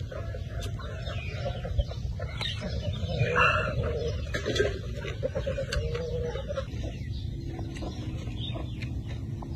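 Chickens clucking, with one louder call about three and a half seconds in; the clucking stops about two-thirds of the way through. Scattered crunchy clicks of chewing come through alongside.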